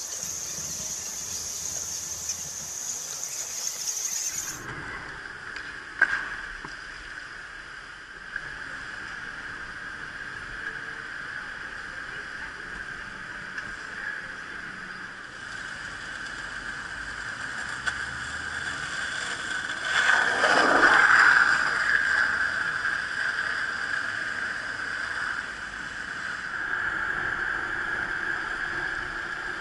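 Riding noise from a bicycle-mounted camera on city streets: a steady rush of wind and road noise. The sound changes abruptly about four seconds in, and a louder rush swells up about twenty seconds in.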